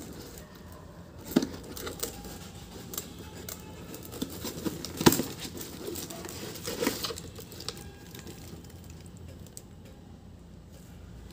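Cardboard carton being torn open by hand: irregular tearing and crinkling with sharp knocks of the board, the loudest about five seconds in, quieter near the end.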